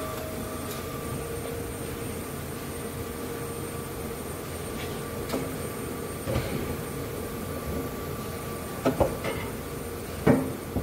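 Steady hum of a factory hall, crossed by a few scattered metallic knocks and clanks. The loudest are a quick pair near the end and a sharper clank just after it.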